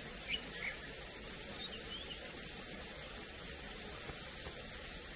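Faint open-air background noise: a steady low hiss with a thin, high pulsing tone that repeats about once a second, and a few faint chirps in the first two seconds.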